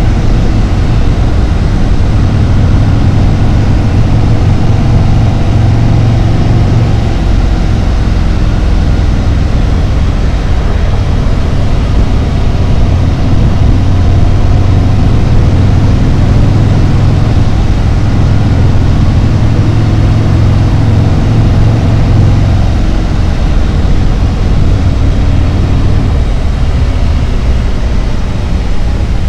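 Harley-Davidson Road Glide's V-twin engine running steadily under way with a strong low note. The note drops back about three-quarters of the way through.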